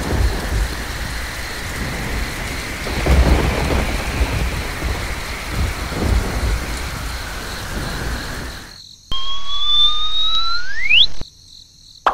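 Thunderstorm sound effect: steady heavy rain with rolls of thunder swelling about three and six seconds in. About nine seconds in it cuts off and a whistling tone glides upward, rising steeply before stopping near eleven seconds.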